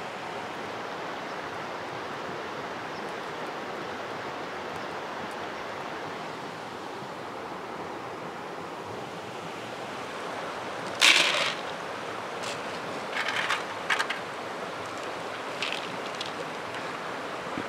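Steady rush of flowing river water. Dry dog kibble rattles in a few short bursts about two-thirds of the way through, the first the loudest, as it is scooped and poured from a bag into a bowl.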